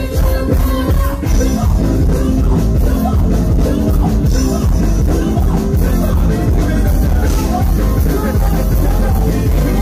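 Loud live band music with a heavy, steady low end throughout.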